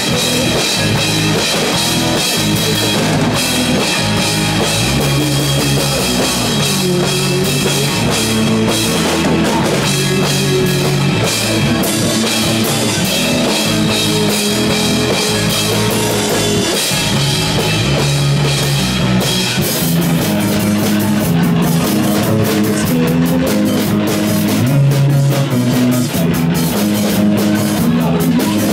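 A live rock band plays an instrumental passage on drum kit and guitar.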